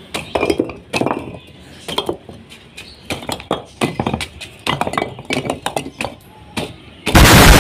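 Cemented bricks of a chicken-coop wall being kicked loose and knocked down: a run of irregular knocks and clinks as bricks strike one another and the floor. About seven seconds in, a sudden, very loud, harsh rush of noise starts.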